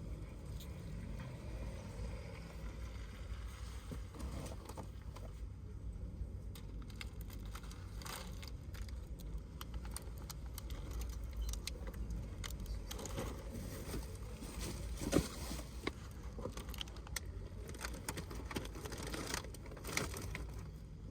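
Ambient sounds of a grocery-shopping trip: a steady low rumble with scattered clicks, rattles and rustling, and one sharper knock about fifteen seconds in.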